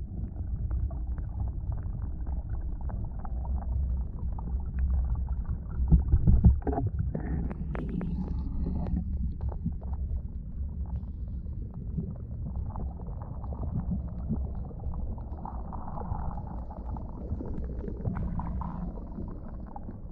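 Muffled underwater sound picked up through a GoPro's waterproof housing: a steady low rumble of stream water, with a few knocks about six to seven seconds in.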